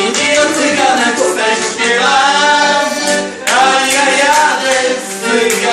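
Male singing to accordion accompaniment, with a steady low accordion note under the tune and a new sung phrase starting about halfway through.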